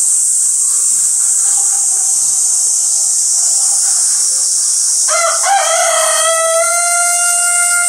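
A rooster crowing: one long call starting about five seconds in, held on a steady pitch, over a steady high-pitched hiss.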